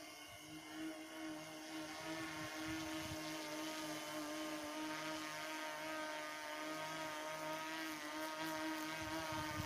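Hexacopter with six brushless U7 motors and 18-inch propellers hovering: a steady whir of several held tones that grows somewhat louder about two seconds in.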